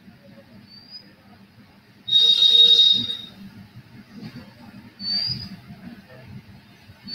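A shrill, steady whistle-like tone over a hiss, lasting about a second, starting two seconds in and the loudest sound here, with short rising high squeaks, one about a second in, a louder one about five seconds in and another at the very end.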